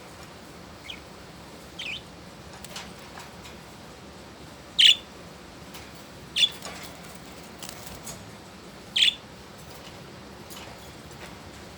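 Pet budgerigars giving short, sharp chirps, a few seconds apart; the loudest come about five, six and a half, and nine seconds in, over a steady faint background hiss.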